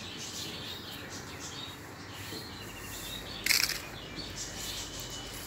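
Birds chirping in the background over a steady outdoor hiss, with a brief, louder sharp noise about three and a half seconds in.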